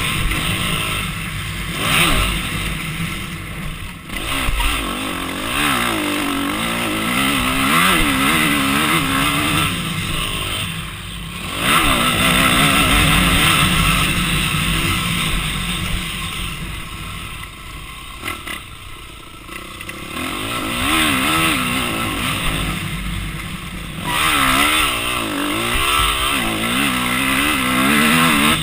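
Onboard sound of an off-road racing engine on a motocross track, revving up and down over and over as the throttle is opened and closed, with wind rushing over the microphone. The engine note falls away briefly several times, most clearly about 4, 11 and 19 seconds in.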